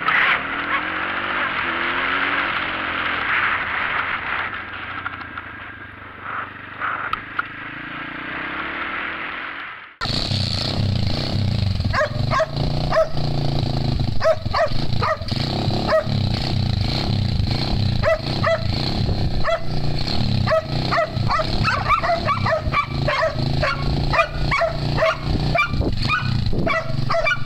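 A motorcycle riding along with muffled engine and wind noise for about the first ten seconds, then a sudden change to a dog barking rapidly and repeatedly, several barks a second, over a low steady engine hum.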